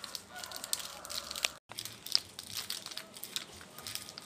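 Irregular crackling and crinkling clicks over a faint hiss, cutting out completely for a moment about one and a half seconds in.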